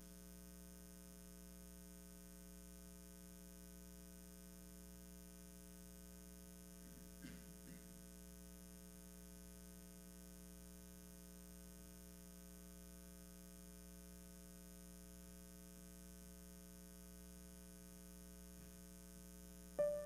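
Near silence with a steady electrical hum, and a faint brief sound about seven seconds in. Piano notes begin at the very end.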